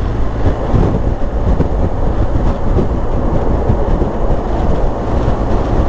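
Motorcycle on the move: the steady low drone of a BMW R 1250 GS Adventure's boxer-twin engine under continuous wind and road rush.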